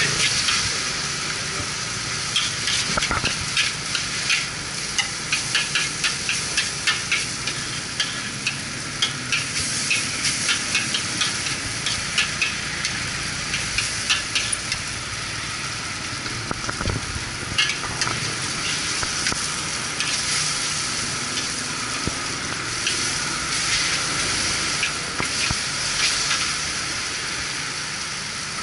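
Char kway teow (flat rice noodles) sizzling in a wok over a charcoal stove, with quick scraping and clanking of a metal spatula against the wok as they are stir-fried. The spatula strokes come thick and fast for roughly the first half and thin out later, leaving mostly the steady sizzle.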